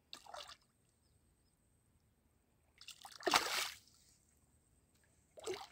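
A hooked carp splashing and thrashing at the water's surface. There is a short splash right at the start and a bigger, longer splash about three seconds in. A smaller splash comes near the end.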